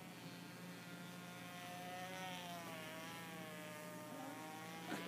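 The high whine of a small RC model plane's Norvel .074 two-stroke glow engine in flight, its pitch sagging and rising again as the plane manoeuvres. A short sharp click comes near the end.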